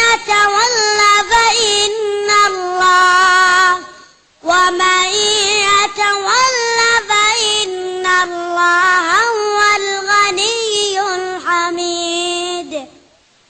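A child's voice reciting the Quran in melodic chant, with long held notes and ornamented turns, in two long phrases with a short breath between. It stops shortly before the end.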